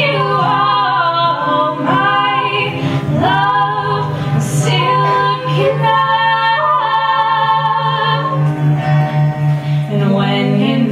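Two women singing a slow song together into microphones, with long held notes, over a strummed acoustic guitar.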